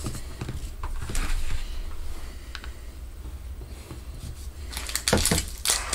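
Scattered light clicks and rustles of small objects being handled on a desk, with a cluster of sharper knocks about five seconds in, over a steady low hum.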